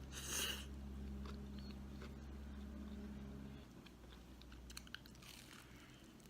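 Close-up chewing and crunching of crisp food, with a loud crunch right at the start and another about five seconds in. A steady low hum underneath cuts off about three and a half seconds in.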